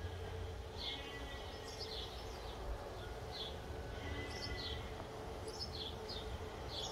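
Small birds chirping: a string of short, high, falling chirps, roughly one or two a second, over a steady low outdoor rumble and a faint hum.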